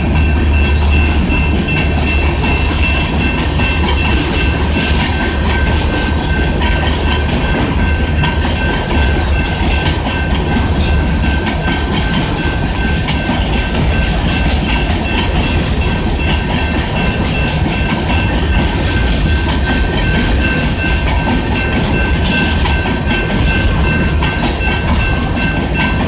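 A freight train of hopper cars rolls past, with a steady low rumble and wheels clattering over the rail joints. A grade-crossing warning bell rings through it as a steady high ringing.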